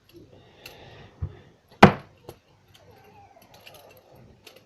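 Metal butterfly knife comb being handled and flipped: its handles clink and rattle against each other in a string of light clicks, with one sharp, louder clack about two seconds in. Parts of it are a bit loose.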